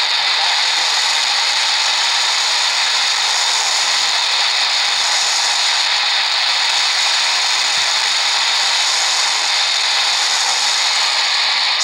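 Degen DE1106 shortwave receiver's speaker giving a steady noise on 5990 kHz AM in the 49 m band: FM broadcast stations breaking through and swamping shortwave reception.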